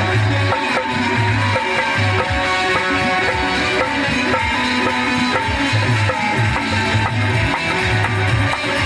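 Instrumental passage of a Hindi folk song: plucked strings and held notes over drums with a steady repeating bass beat.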